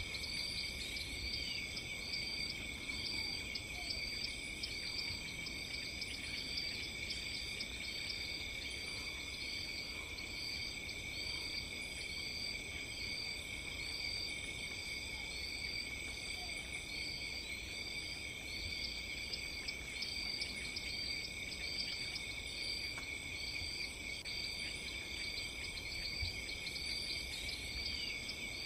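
Night-time chorus of crickets and other insects: a steady high trill, with a higher short chirp repeating about once a second over it and a low rumble underneath.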